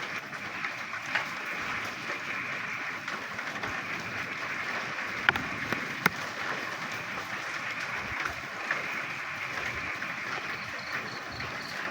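Dense chorus of frogs croaking in the rain, with two sharp clicks about halfway through.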